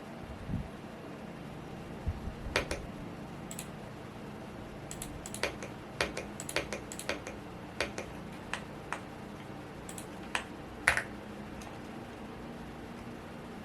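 Unhurried, irregular typing on a Womier S-K71 mechanical keyboard: scattered keystroke clicks that start a couple of seconds in and stop near the end. A fan hums steadily underneath.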